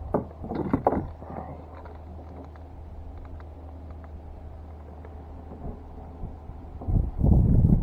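A few light clicks and knocks of gear being handled, then a low steady hum, then from about seven seconds in, wind buffeting the microphone in a loud low rumble.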